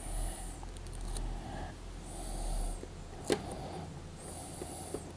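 Soft breathing close to the microphone, three breaths about two seconds apart, with one light click of handling about three seconds in.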